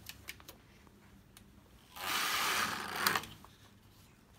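V-bed flat knitting machine's carriage sliding once across the needle beds, a rushing swish of about a second starting about two seconds in, as it knits a course. A few light clicks come before it.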